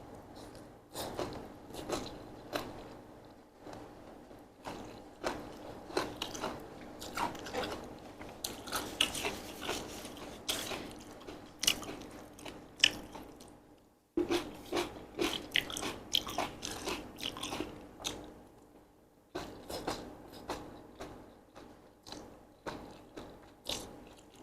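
Close-miked chewing and biting of mouthfuls of Korean japchae, chewy sweet potato glass noodles with vegetables, with many small wet clicks and crunches. The sound stops abruptly twice for about a second, near the middle and a few seconds later.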